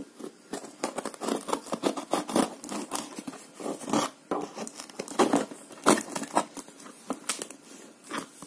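Serrated kitchen knife sawing and scraping through plastic packing tape on a cardboard box, a quick irregular run of scratches and tearing. Near the end, scissors cut at the tape.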